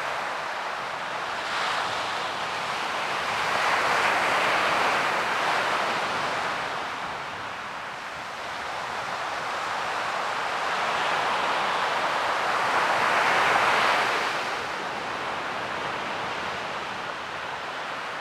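Ocean surf: waves breaking and washing in, the rush swelling twice, about four seconds in and again near thirteen seconds, then ebbing between.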